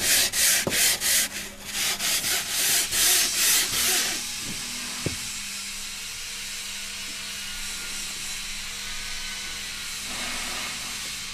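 Hand sanding block rasping back and forth across the edge of a wedge block, about three strokes a second, putting a slight bevel on it. The strokes stop about four seconds in, leaving a steady faint hiss and hum.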